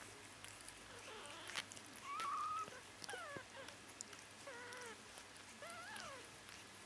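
Bengal kittens mewing: four short, thin calls spread over a few seconds, most of them rising then falling in pitch.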